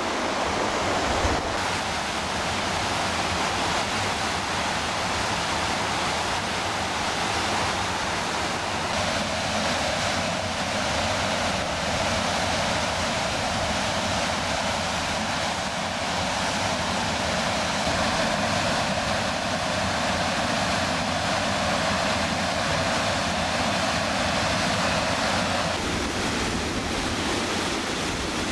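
The River Orchy rushing steadily over rapids and a low waterfall, with its tone shifting slightly about a second and a half in and again near the end.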